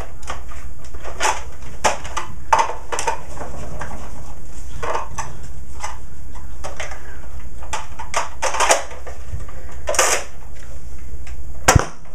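Plastic clicks and knocks from handling a Nerf Zombie Strike Slingfire dart blaster and its magazine, then a single sharp shot from the blaster near the end.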